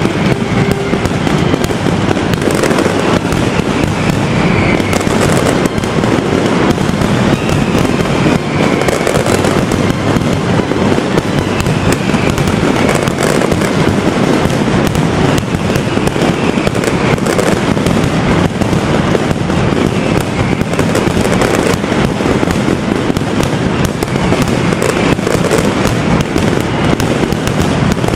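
Mascletà: a dense, unbroken barrage of firecracker bangs going off in rapid succession at a steady loud level.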